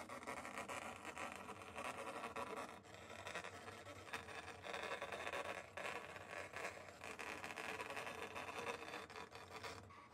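Brother ScanNCut cutting machine cutting out a fabric shape with its auto blade, its motors whirring as the blade carriage travels and the rollers move the mat back and forth. The whir swells and dips every second or two, with brief pauses as the machine changes direction.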